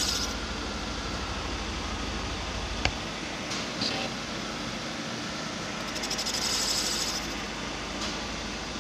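Valve-seat cutting machine refacing an old valve seat in a Renault 1.4 8V cast cylinder head, with a steady whirring machine noise. A sharp click comes near three seconds in, and the high cutting hiss swells for about a second later on.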